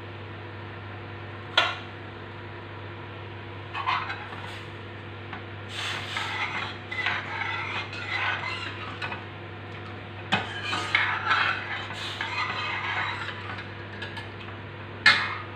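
Steel ladle stirring cooked rice ada in jaggery syrup in a stainless steel pan: two longer spells of wet scraping, with about four sharp clinks of the ladle against the pan.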